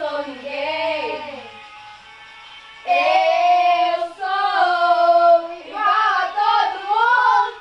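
A young female voice singing a melody in long held, bending notes, softer at first, then louder from about three seconds in.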